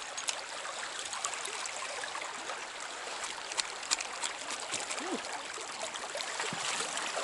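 Small trout stream running and trickling: a steady rush of moving water, with scattered small clicks and ticks over it.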